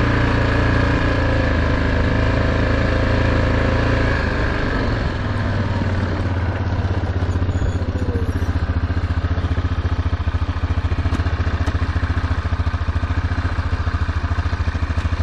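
A vehicle's engine running steadily, easing off about five seconds in and then idling with an even, rapid pulsing.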